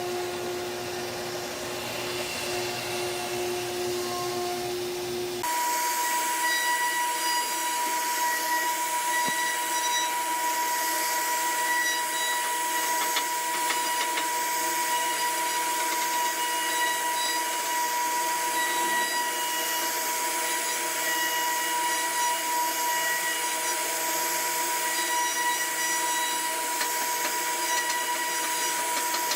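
CNC router spindle running steadily while it carves wood, a constant machine whine with steady pitched tones. About five seconds in the sound switches abruptly to a higher, steady whine.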